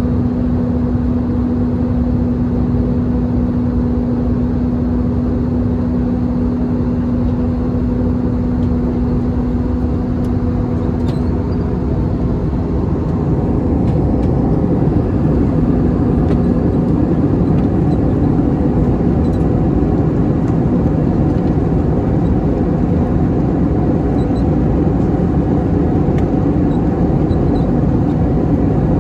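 Airbus A321-211 in flight, heard inside the cabin: the steady roar of its CFM56 engines and the airflow. A steady hum in the roar fades out about halfway through, and the roar grows slightly louder.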